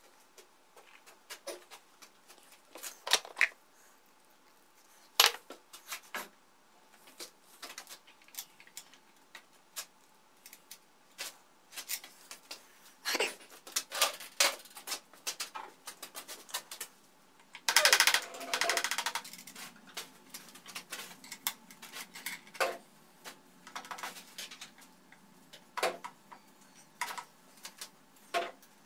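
Irregular clicks, taps and clinks of small metal parts and hand tools being handled during machine repair, with a short rattling clatter about eighteen seconds in.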